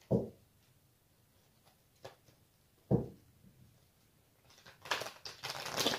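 A deck of tarot cards being handled: two dull knocks, then from about four and a half seconds a run of crackly card shuffling.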